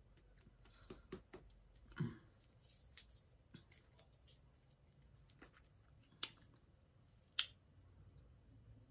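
Scattered small, sharp clicks and taps from handling candy and a paper candy straw at close range. The loudest come about two seconds in and near the end.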